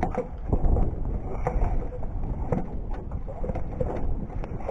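Wind buffeting the microphone in a steady low rumble, with scattered light knocks and rustles as a northern pike is handled in a landing net on the wooden dock boards.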